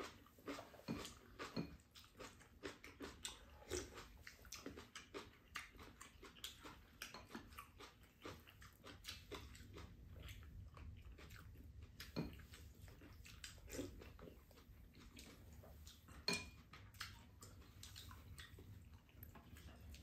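Quiet sounds of two people eating: chewing, with many scattered small clicks of spoons and chopsticks against bowls and a pan.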